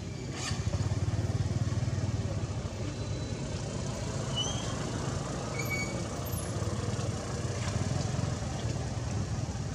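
Steady low rumble of a vehicle engine running, with a few brief high chirps about four to six seconds in.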